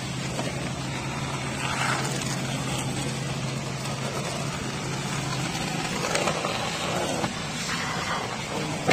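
Self-service car wash vacuum running: a steady rush of air over a low motor hum, the hum dropping away about five seconds in.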